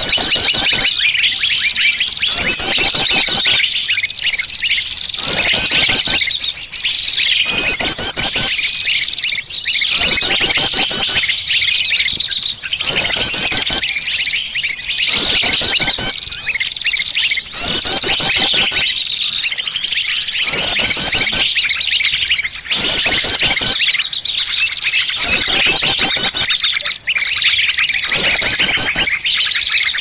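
Looped bird-lure recording: a dense, noisy mix of small songbirds chirping and calling, high-pitched and repeating about every two seconds, made to draw small birds in.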